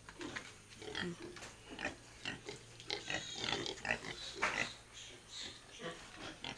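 Piglets grunting in short irregular calls, a few of them higher and longer around three seconds in.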